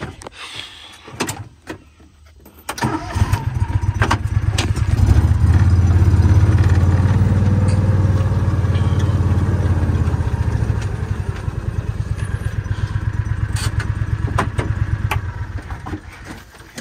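A few knocks, then a tractor engine starts about three seconds in. It builds over a couple of seconds and runs with a steady low rumble, easing slightly in the second half.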